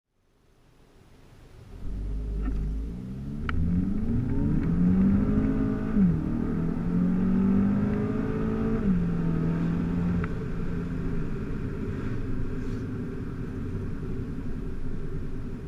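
VW Golf 5 GTI's 2.0 turbocharged four-cylinder engine accelerating: the engine note fades in, rises in pitch, dips suddenly at a gear change about six seconds in, rises again, then drops to a steady note about nine seconds in.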